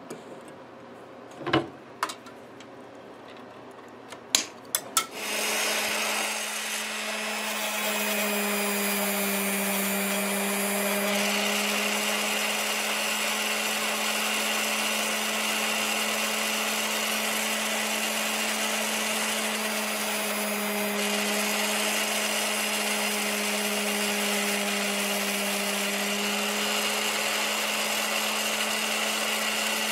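A few sharp snips as fret wire is cut with pliers, then a small 3-inch bench grinder switches on about five seconds in and runs steadily.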